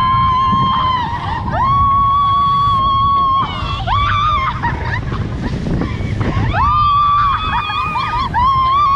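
Several people screaming in long, high held screams, one after another and overlapping, over a constant low rumble of a boat engine and water on a towed inflatable ride.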